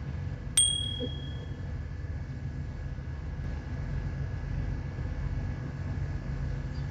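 Steady low hum of the ship's engine. About half a second in, a sharp click rings briefly with a high ping.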